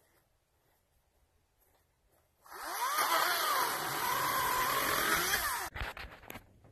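Greenworks 40-volt DigiPro battery chainsaw cutting through a pine log, starting about two and a half seconds in: electric motor whine and chain cutting, the pitch dipping under load mid-cut and coming back up, then stopping abruptly after about three seconds. A few short knocks follow near the end.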